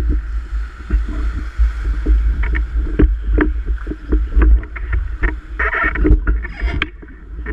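Class 4 whitewater rapids churning around a raft, with a constant deep rumble and many short, sharp splashes.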